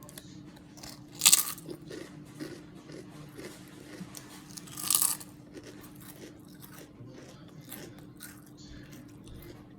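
A person chewing a Subway tuna sandwich with crisp vegetables close to the microphone. There are two louder crunches, about a second in and near five seconds, with small chewing clicks between.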